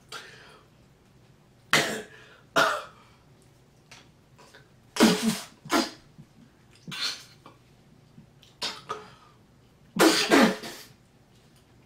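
A man coughing in a series of short fits, the loudest about five seconds and ten seconds in.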